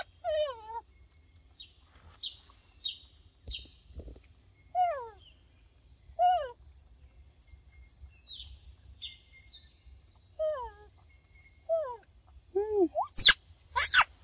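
Short whistled animal calls, each falling in pitch, repeated every second or two over a steady high-pitched drone, with a couple of sharp clicks near the end.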